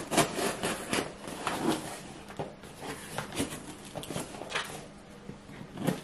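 Packing tape on a cardboard shipping box being slit open with a kitchen utensil: irregular scrapes, rips and taps of cardboard, loudest right at the start.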